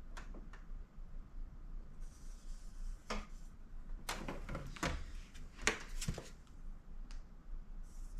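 Scattered light clicks and knocks of PS5 plastic cover plates being handled and shifted, clustered about four to six seconds in, with a short scratchy hiss of a marker on plastic about two seconds in.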